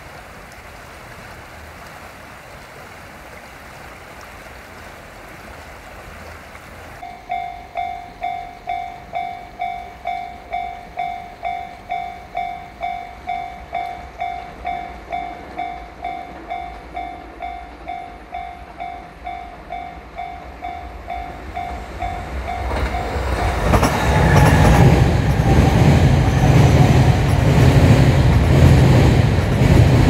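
A Japanese level-crossing warning bell rings about twice a second. About twenty-three seconds in, a JR East E257 series limited express electric train comes up and passes at speed, its wheels rumbling loudly on the rails and drowning out the bell.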